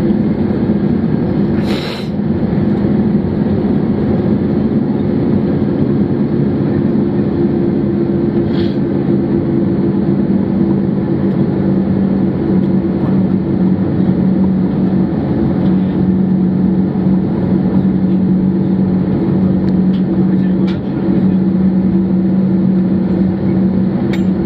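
Cabin noise of an Airbus A321 rolling on the ground after landing: the jet engines' steady low hum over a rumble, with a brief sharp click about two seconds in and a fainter one later.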